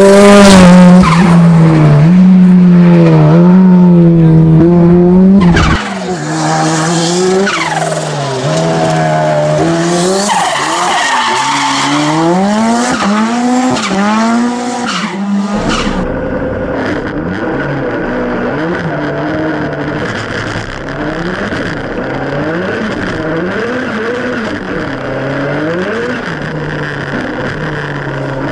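Ford Sierra Cosworth's turbocharged YB four-cylinder revving hard, its pitch rising and falling again and again as the car is drifted, with tyre squeal. About halfway through, the sound switches to inside the cabin: the engine note is lower and muffled, still rising and falling with the revs.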